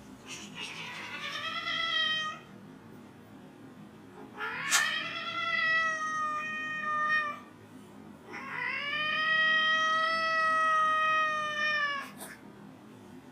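A cat meowing three times in long, drawn-out yowls, each held for two to three and a half seconds. A sharp click comes at the start of the second yowl.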